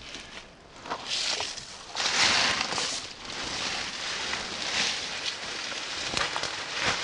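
Footsteps and rustling through forest undergrowth, coming in uneven swells, with a few sharp clicks.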